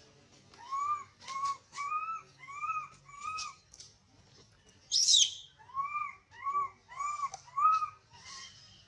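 An animal calling: a series of short, arched, whistled calls, five in quick succession and then four more. A single loud, harsh, high call comes between the two runs, about five seconds in.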